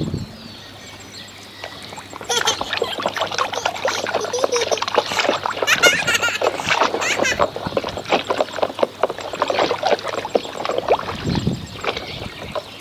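Water sloshing and splashing as hands swish plastic toys around in a plastic tub of soapy water, starting about two seconds in and easing off near the end.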